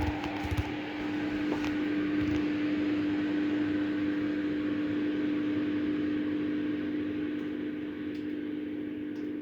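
Smoke extractor built from a Vevor HVAC fan running steadily, a fan rush with a steady hum. A few knocks sound in the first couple of seconds.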